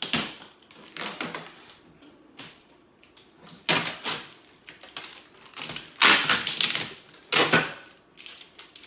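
Packing tape and plastic wrapping being pulled and torn off a new 3D printer, in about seven irregular crackling rips, the longest and loudest around the middle and two-thirds of the way through.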